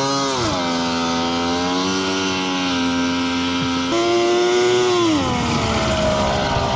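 Two-stroke Polaris 650 triple snowmobile engine in a go-kart buggy, running under throttle. Its revs drop about half a second in, hold, rise sharply about four seconds in, then fall away again. The CVT belt is slipping.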